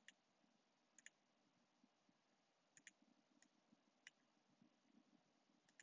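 Near silence broken by faint computer mouse clicks, a few single and some in quick pairs, as on-screen toggles and buttons are clicked.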